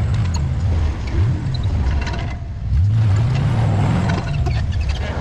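Dodge Ram pickup engines running under load as one truck pulls the other on a tow strap through snow. The engine pitch rises about a second in, then climbs again near three seconds and holds higher for about a second and a half.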